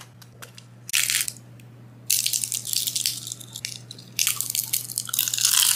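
Crisp, freshly deep-fried lumpia wrappers crunching and crackling as the rolls are broken open: a short crackle about a second in, then longer dense crunching from about two seconds in. A low steady hum runs underneath.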